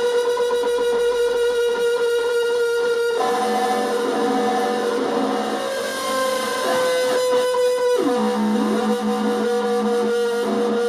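Analog synth sounds from a 555-timer polyphonic keyboard used as a pseudo control voltage for a synth module: droning electronic tones that jump to a new chord about three seconds in, swoop up and down in pitch glides around the middle, then settle on a lower drone.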